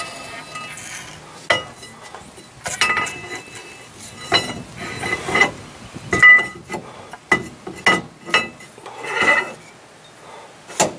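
A new steel Dutchman C-clip axle shaft clinking and knocking as it is slid by hand into a Ford 7.5-inch rear axle housing, with about a dozen sharp metallic clinks, some briefly ringing, and a short rattle near the end.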